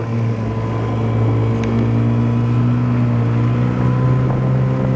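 Small fishing boat's outboard motor running steadily under way, its pitch stepping up slightly about a second in.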